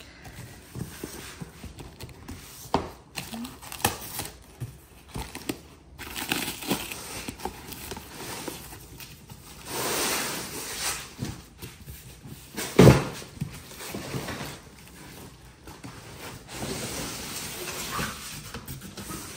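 Packing paper crumpling and rustling and cardboard scraping as a box is unpacked by hand, with one sharp thump about two-thirds of the way through.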